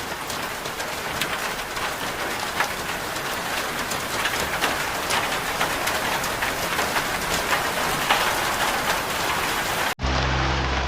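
Steady rain falling, with many separate drops heard as sharp ticks. It cuts off abruptly about ten seconds in, when music with steady low tones begins.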